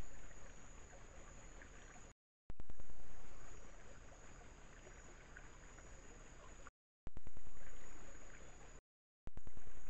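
A small rocky stream gurgling, heard through a trail camera's microphone in short clips: the sound drops out three times, and each new clip starts louder with a few clicks and settles within a second or two.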